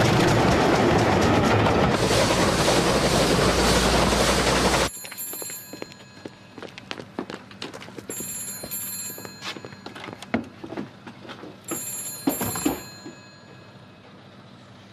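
A steam-hauled passenger train passing close by at speed, a loud rushing rumble that cuts off abruptly about five seconds in. Then an old bell telephone rings in three bursts of about a second each, with scattered knocks and footsteps between them.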